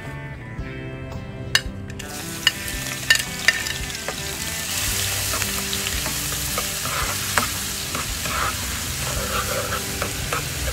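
Minced garlic goes into hot oil in a frying pan about two seconds in and sizzles, getting louder from about five seconds, while a spoon stirs it and clicks against the pan. Soft background music with steady notes plays underneath.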